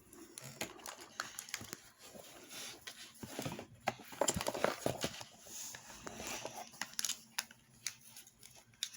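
Kinetic sand being dug and scraped out of a mold: irregular scratchy rustling with scattered light taps and clicks, busiest in the middle.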